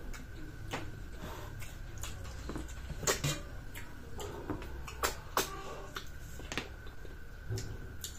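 Snail shells clicking and tapping against each other and a dish while being eaten: about a dozen sharp clicks at uneven intervals.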